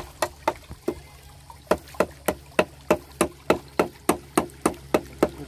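Regular sharp knocks, about three a second, pausing briefly about a second in, over a steady low hum.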